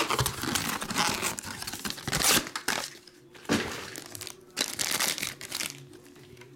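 Shiny black plastic bag crinkling and crackling as it is handled and opened, busiest in the first half and dying down near the end.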